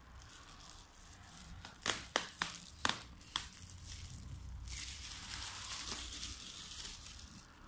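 Clear micro-perforated POF shrink film crinkling as it is handled and crumpled by hand. Several sharp crackles come about two to three and a half seconds in, followed by a steady rustle.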